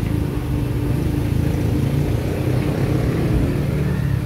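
Bus engine running steadily, with road noise, heard from inside the passenger cabin.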